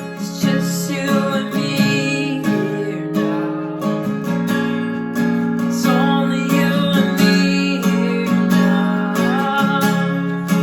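Acoustic guitar strumming sustained chords of a slow worship song, with a faint wavering melody line over it.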